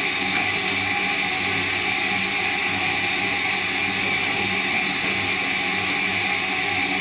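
Semitool ST-240 spin rinse dryer in its dry cycle, its wafer-cassette rotor spinning at about 2,000 RPM. The result is a steady rushing hiss over a low hum, running smooth with no vibration.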